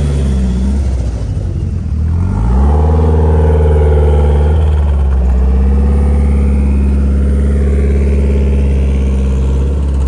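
A car engine and exhaust running loud and low. About two seconds in it dips, then climbs in pitch and holds a higher, steady note until it drops off near the end.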